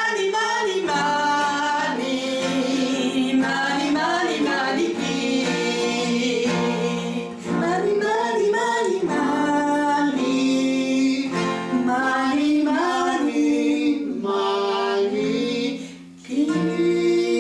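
Singing with music: long held sung notes that slide from pitch to pitch without clear words, broken briefly about seven seconds in and again near the end.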